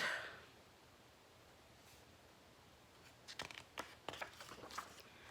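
A picture book's pages being handled and turned. About three seconds in comes a run of light paper clicks and rustles.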